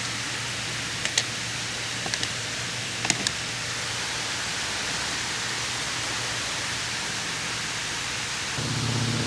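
Steady rush of falling water from a large circular fountain, with a few light clicks in the first few seconds. Near the end the low drone of a biplane's engine overhead comes in and grows louder.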